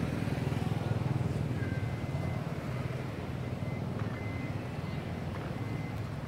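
A motor vehicle's engine running steadily at a low pitch, slowly fading.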